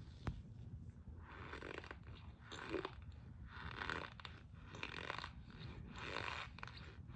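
Mouth chewing chunks of cornstarch with a squeaky crunch, about five chews roughly a second apart, after a sharp click near the start.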